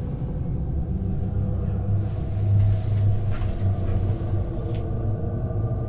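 Low, steady rumble of storm wind around the bothy, swelling a little about two seconds in.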